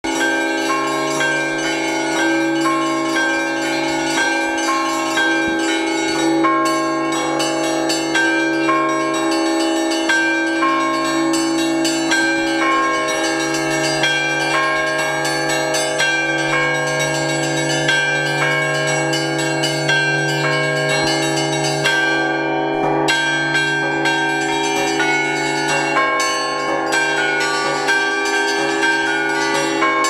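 Russian Orthodox church bells rung from the belfry by a bell-ringer pulling the clapper ropes. The smaller bells strike in a dense, continuous pattern over the lasting hum of a larger bell.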